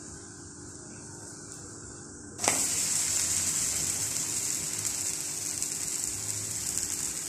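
A pancake frying in a hot non-stick pan, with a faint sizzle at first. About two and a half seconds in, a sudden much louder sizzle starts, as the pancake is turned and its raw side lands on the hot pan, and it carries on steadily.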